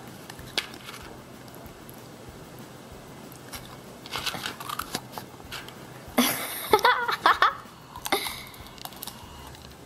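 Potato chips rustling and crinkling as they are picked out of a plastic tub, then crunched while being eaten. A short burst of voice about six seconds in is the loudest sound.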